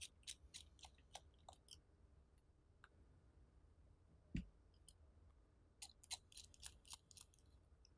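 Faint, quick clicks of a small pentalobe screwdriver turning the bottom screws of an iPhone 6s, in two short clusters, with one dull thump about halfway through as the loudest sound.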